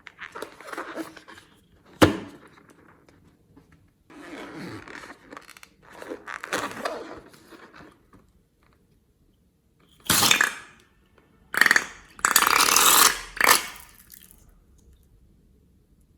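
Slime being squeezed and worked by hand, giving wet squelches and air-pocket pops in irregular bursts. There is a sharp click about two seconds in, and the loudest run of squelches comes in the last few seconds.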